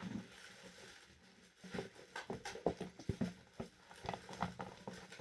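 Homemade slime being mixed: soft, irregular sticky squelches and small pops, starting about two seconds in.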